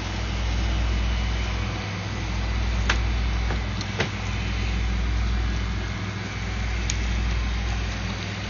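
Model diesel locomotive running along the layout track: a steady low rumble and hum that swells and fades about every two seconds, with a few sharp clicks.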